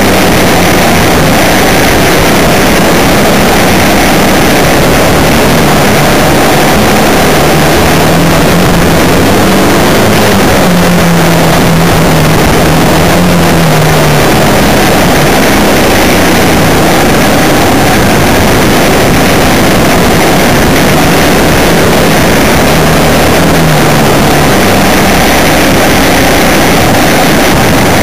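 Onboard sound of a vehicle driving a gravel mountain track. Its engine hum shifts up and down in pitch with the throttle, buried under loud, steady wind and road noise on the microphone.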